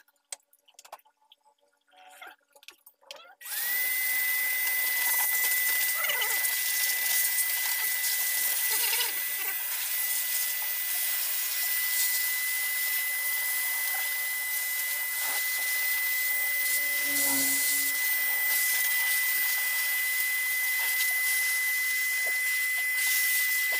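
An electric air tool with a hose switches on about three seconds in, its motor quickly coming up to speed and then running steadily: a loud rush of air under one high, steady whine. Before it starts there are only a few light handling clicks.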